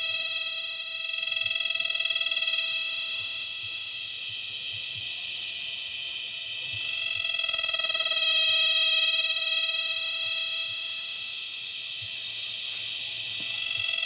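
Cicada calling up close: a loud, shrill, unbroken buzz with a strong ringing pitch, the male's mating call. It swells and eases in slow waves every several seconds.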